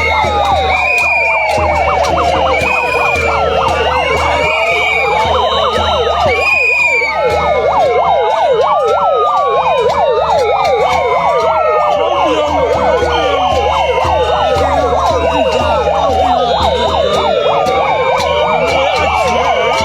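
Many sirens wailing at once, loud, their rising and falling tones overlapping continuously, with short repeated chirping tones above them.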